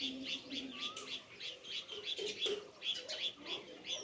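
Sparrows chirping: a dense stream of short, overlapping chirps, several a second, with an occasional gliding whistle.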